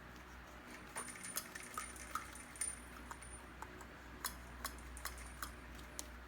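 Small stainless steel faucet parts clinking and tapping against each other and the work surface as they are handled, a string of light sharp clicks beginning about a second in.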